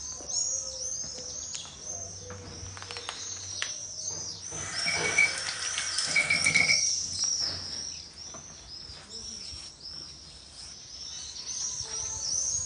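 Small birds chirp high and without pause. For about two seconds in the middle there is a louder rush of splashing water at the drinking fountain.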